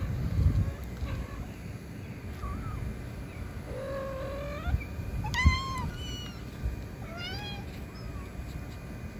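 Kittens mewing: about five short, high calls, most rising in pitch, starting about two and a half seconds in. A dull thump comes about halfway through.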